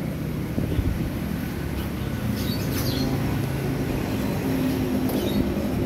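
An engine running steadily, a low hum.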